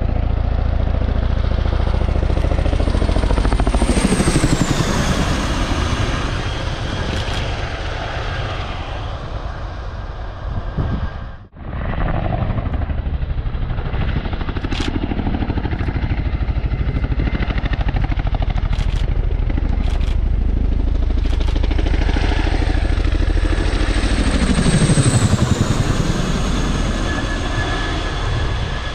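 Boeing CH-47 Chinook tandem-rotor helicopter flying low past, its rotors beating fast and its twin turboshaft engines whining. The pitch falls as it passes about four seconds in and again at a closer, louder pass about 25 seconds in. The sound drops out for a moment about eleven seconds in.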